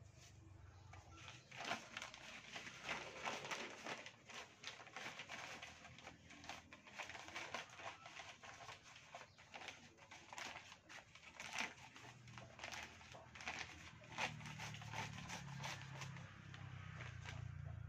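Black plastic polybag being opened and handled, giving many quick, irregular crinkles.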